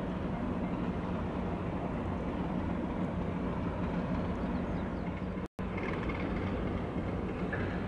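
Steady low rumble of heavy running machinery with a hum, broken by a brief total dropout a little past five seconds in.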